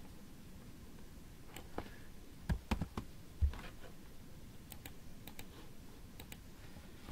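Computer keyboard keystrokes: scattered faint clicks, with a short cluster of louder taps about two and a half seconds in.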